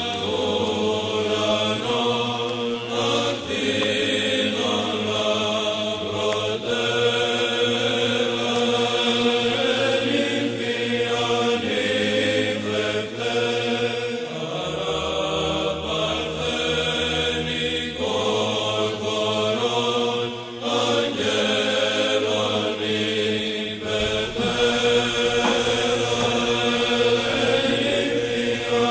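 Background music of chanting voices over a held low drone note that shifts pitch every few seconds.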